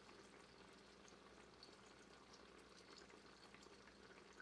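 Near silence with faint bubbling from pots boiling on the stovetop, a mushroom cream sauce reducing at a boil.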